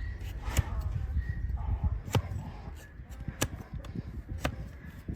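Sharp cracks of a hoof knife cutting through hard, overgrown donkey hoof horn: about five, roughly a second apart.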